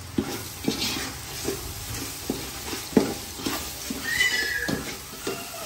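Wooden spoon stirring and scraping masala in an aluminium pot, knocking against the pot over and over, over a light sizzle as the spices fry in oil. A brief high squeal sounds about four seconds in.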